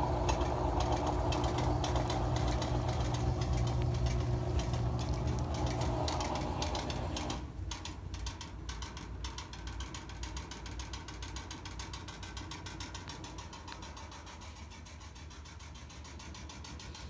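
Top-loading impeller washing machine running with a steady mechanical hum. The louder part of the sound cuts off suddenly about seven and a half seconds in, leaving a quieter running sound.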